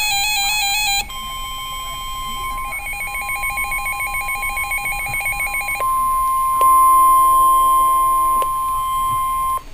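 NOAA Weather Radio emergency alert tones. About a second of rapidly warbling data tones gives way to the steady 1050 Hz weather alert tone, with other electronic beeping tones layered over it. The alert tone cuts off suddenly near the end.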